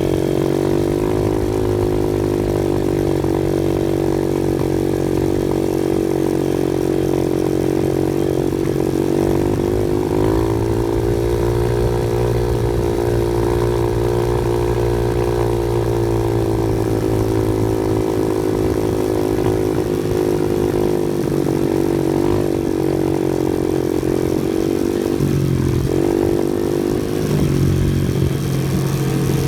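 Off-road vehicle engine running steadily while driving, its pitch drifting up and down gently with the throttle and dipping briefly near the end.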